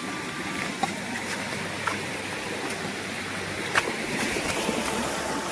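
Rushing water of a stream or waterfall, a steady rush, with a few light clicks about one, two and four seconds in.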